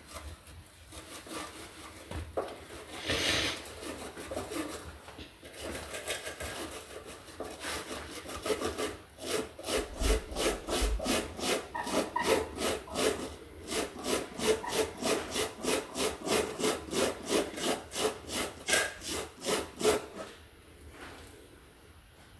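Corrosion being scraped by hand off tractor battery cable terminals. Irregular rubbing at first, then from about eight seconds in quick, even back-and-forth scraping strokes, roughly three a second, which stop a couple of seconds before the end.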